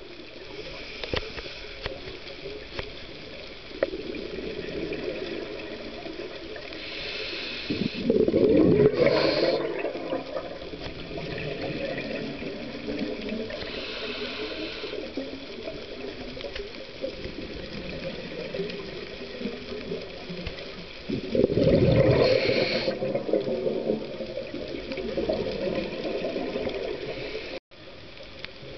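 Scuba diver's regulator breathing underwater: two loud gushes of exhaled bubbles, about eight and twenty-one seconds in, with fainter hissing breaths in between over a steady underwater murmur.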